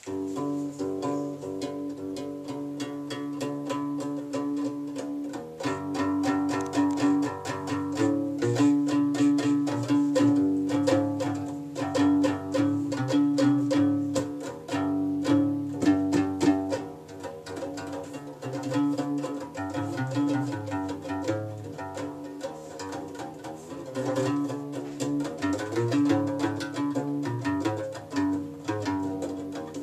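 Moroccan guembri (sintir), the three-stringed skin-covered bass lute of gnawa music, played solo. A plucked bass line moves under a repeated higher note in a driving rhythm, with a sharp click on many strokes. It gets louder about five seconds in.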